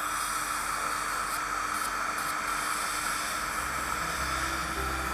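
Dental suction tip hissing steadily as it draws fluid from around a tooth. Background music comes in about three and a half seconds in.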